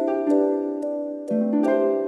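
Gentle instrumental background music of plucked notes that ring and fade, a new note or chord every half second or so.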